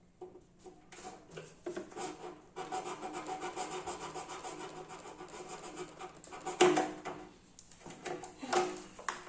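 Hand tools working at a hose clamp on a motorcycle: small knocks, then a sustained rasping scrape for a few seconds, then two sharp clanks.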